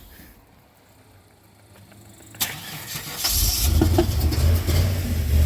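A Chevrolet LT1 350 V8 in a Z28 Camaro stops, then after about two seconds of near quiet it is cranked and catches again with a strong low rumble. The engine is misfiring, which the owners put down to injectors not firing.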